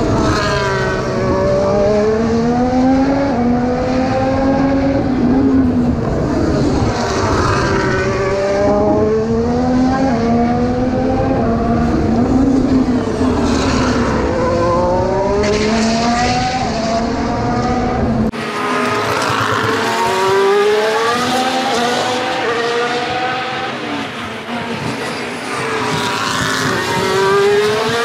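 Formula 1 cars' 1.6-litre V6 turbo-hybrid engines running past at race pace, one car after another. The engine note falls as they shift down and brake for the corners, then rises again as they accelerate away, over and over.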